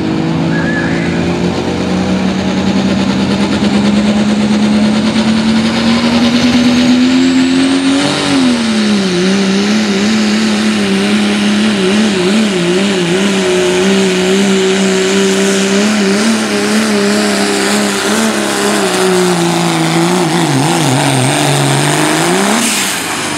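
Four-wheel-drive diesel pickup in the 2.6-inch turbo class at full throttle pulling a weight sled. The engine note climbs steadily for about eight seconds with a high turbo whistle rising above it, then holds with a wavering pitch as the sled loads up. It sags and wobbles as the truck slows near the end, then drops away abruptly.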